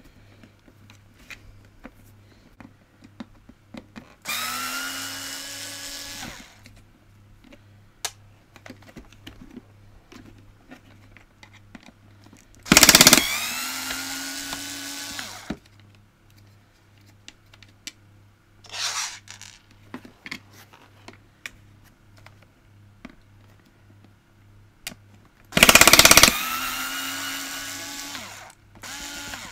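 Small cordless electric screwdriver running in three bursts of two to three seconds, each whine rising as the motor spins up and then holding steady, with a brief blip in between. It is undoing tight screws that hold a vacuum cleaner's plastic cage.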